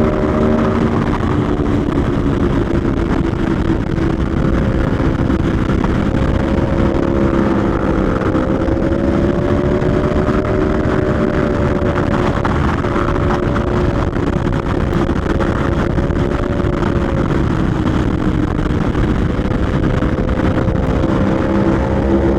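Aprilia Tuono V4 1100 Factory's V4 engine pulling steadily at speed, its note rising and falling gently as the throttle is worked, under heavy wind rush on the helmet camera.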